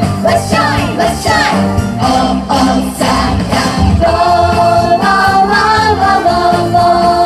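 Loud music with singing, several voices together, continuing without a break.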